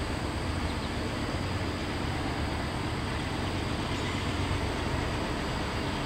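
Diesel locomotives of a CSX-powered freight working hard up a grade: a steady low engine rumble under load as the train approaches.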